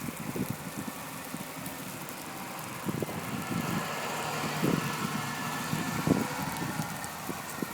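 A motor vehicle going by, its engine and tyre noise swelling from about three seconds in and easing off near the end, over irregular low thumps.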